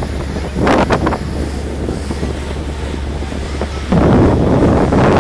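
Wind buffeting the microphone in gusts over the steady low drone of a passenger ferry's engine. There is a brief gust about a second in and a louder, lasting one from about four seconds.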